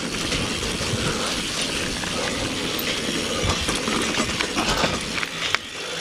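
Steady rush of wind on the microphone and tyre noise from a single-speed mountain bike being ridden on a dirt trail, with a few short knocks and rattles.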